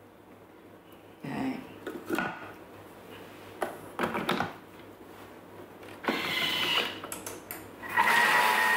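Knocks and clicks of a Thermomix TM6 steel mixing bowl being seated in its base and the lid locked on, then about eight seconds in the motor starts with a steady whine, mixing milk, cream and egg yolks at speed four to break up the egg.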